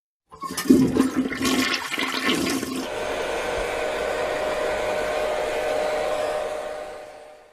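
Toy dollhouse's electronic toilet-flush sound effect: a rush of flushing water, uneven at first, then settling into a steady flow that fades out near the end.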